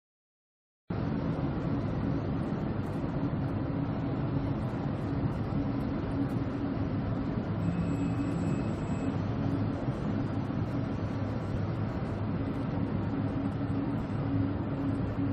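Steady rumbling drone of an oil tanker under way in a storm, heavy wind and sea noise over a constant low machinery hum, cutting in abruptly about a second in.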